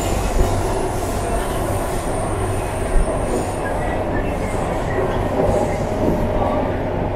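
MTR Kwun Tong line C-train heard from inside a passenger car while running: a steady rumble of wheels and running gear on the rails, with a thin high squeal for a couple of seconds and a single knock about three seconds in.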